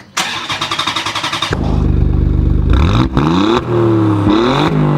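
A car engine being started: about a second and a half of rapid starter cranking, then the engine catches and runs, revved up and back down twice.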